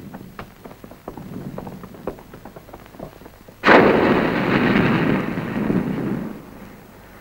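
Faint, irregular clopping of walking horses' hooves, then about halfway through a sudden loud blast of artillery fire that carries on for about two and a half seconds before fading.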